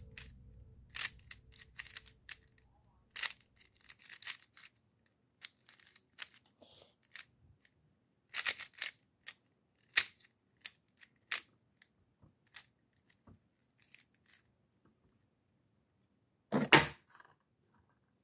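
Irregular plastic clicks and clacks of a GAN Mirror M magnetic mirror puzzle cube being turned and handled, with a louder clatter near the end.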